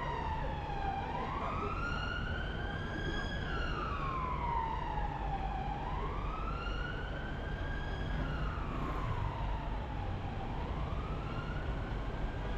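An emergency vehicle's siren wailing, its pitch rising and falling slowly, about one full rise and fall every four and a half seconds, over the low rumble of the car's engine and tyres.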